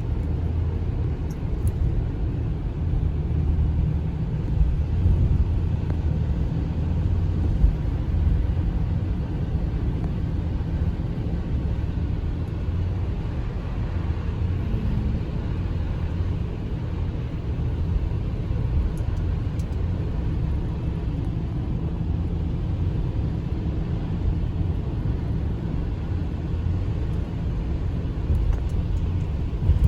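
Steady low rumble of a car driving on a wet, snowy road, with road and tyre noise heard from inside the cabin.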